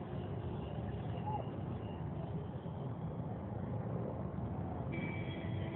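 Congested road traffic of cars, buses, autorickshaws and motorbikes, a steady low rumble of idling and crawling engines. A vehicle horn sounds near the end.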